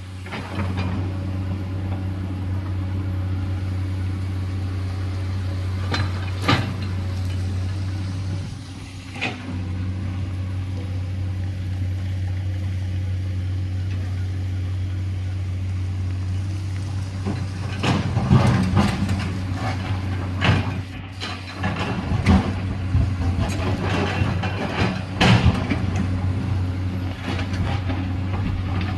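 Heavy earthmoving machine's diesel engine running steadily, with scattered clanks and knocks that grow thick in the second half as the machine works.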